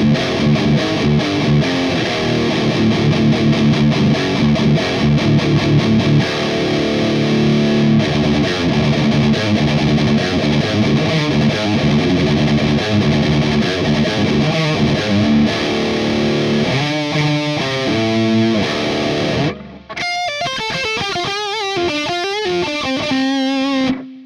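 Electric guitar played through the Audio Assault Bulldog amp simulator with a distorted tone: dense riffing for most of the time, then after a brief drop about twenty seconds in, separate single-note lines ending on a held note that cuts off near the end.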